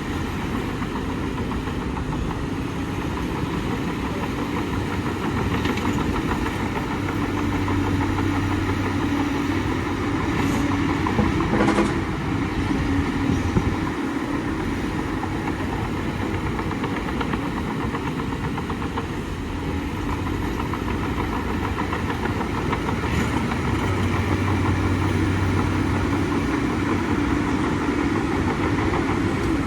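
Bulldozer's diesel engine running steadily, its low drone swelling twice as it works harder. A brief sharp knock comes near the middle.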